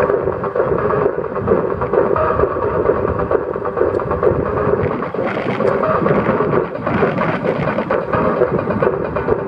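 Steady rush of wind buffeting a microphone mounted outside a moving car, mixed with the car's road noise.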